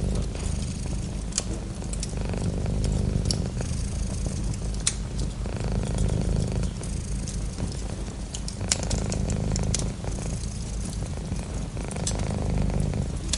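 Domestic cat purring close up, a steady low rumble that swells and fades every couple of seconds with its breathing. A few sharp pops from a wood fire crackling sound over it.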